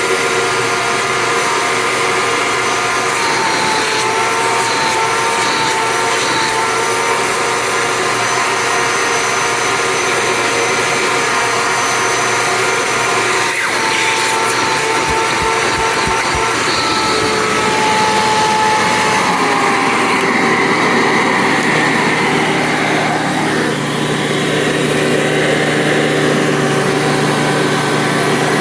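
A 2002 Hoover Sprint U5068-900 12-amp upright vacuum cleaner running steadily with a motor whine. There is a single knock about halfway through, and about two-thirds of the way in its pitch dips and the tone changes.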